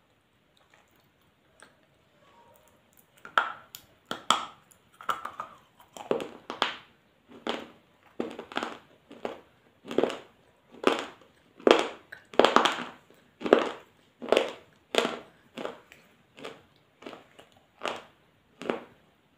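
A person biting and chewing crunchy clay close to the microphone: sharp crunches, a little more than one a second, starting about three seconds in.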